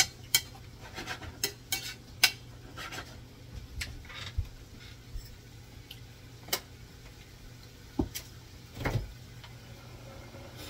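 A spatula stirring cabbage in a frying pan, knocking and scraping against the pan in irregular clicks, frequent in the first few seconds and sparser after, over a steady low hum.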